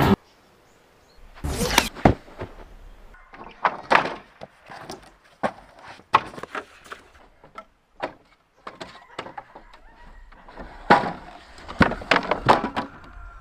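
Wooden pallets knocking and clattering in a run of scattered thuds, with a louder burst of knocks near the end.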